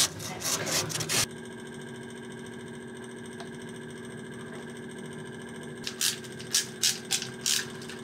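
Abrasive sanding pad scrubbed back and forth on copper water pipe, several quick rasping strokes that stop about a second in. A steady hum follows, and near the end a handful of sharp clicks and scrapes as hose fittings are handled.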